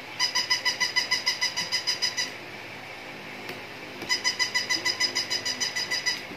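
Battery-operated robot puppy toy playing rapid electronic chirping beeps, about eight a second, in two bursts of about two seconds each with a pause between.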